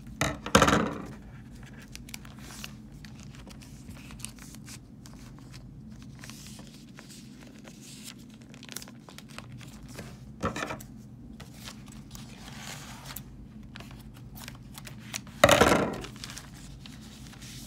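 Sealed plastic comic bag being torn open and handled, crinkling, with three louder tearing rustles: one about half a second in, one around ten seconds, and the loudest near the end. A steady low hum runs underneath.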